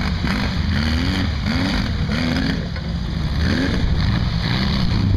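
Off-road sandrail's engine revving up and down over and over as it drives across the dirt humps, over a steady low rumble.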